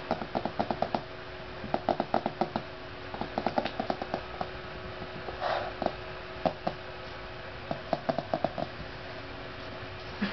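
A four-week-old cockachon puppy's claws clicking on a hardwood floor as it walks, in quick runs of light taps with short pauses between.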